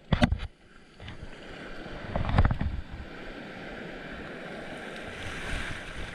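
Ocean surf washing and splashing up close, with a few sharp splashes right at the start and a heavier wave surge about two seconds in.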